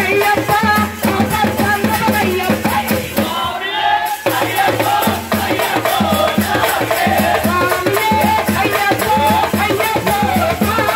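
Festival music with drums, a fast, even shaker-like jingling beat and a winding melody over it.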